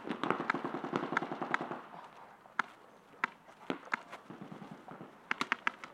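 Paintball markers firing: a rapid string of shots in the first two seconds, then scattered single shots, and another quick burst near the end.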